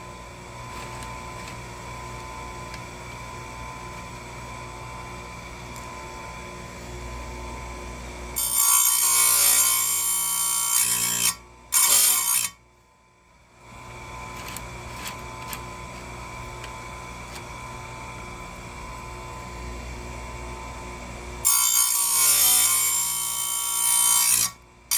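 Power Fist electric chainsaw sharpener running with a steady whine from its spinning grinding wheel, twice brought down onto a chain tooth for a loud, rough grind of about three seconds each. The sound drops out briefly between the two grinds.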